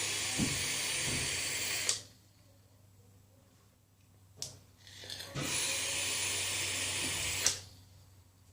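Freshly rebuilt and wicked Atlantis vape coil sizzling and hissing as it is fired and drawn on, in two hits of about two seconds each. Each hit starts and ends with a click. These are the first hits that saturate the new cotton with juice.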